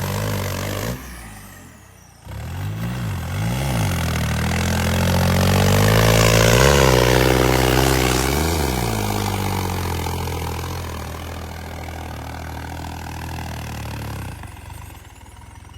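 New Holland 3630 tractor's diesel engine revving under heavy load as it churns through deep mud, its pitch rising and falling several times. It drops away briefly about a second in, comes back, and fades toward the end.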